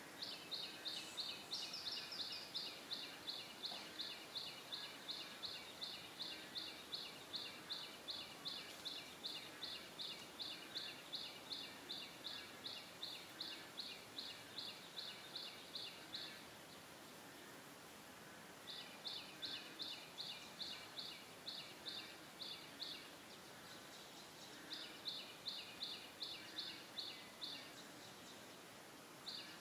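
A wild animal calling in a long run of quick, evenly spaced high chirps, about three or four a second, which breaks off twice and starts again.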